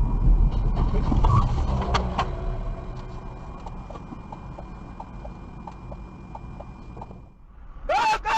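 Dash-cam audio from inside a vehicle: loud low rumble of the engine and road, with a couple of sharp knocks that ring briefly about two seconds in. The rumble then drops, leaving regular faint clicking at about two a second.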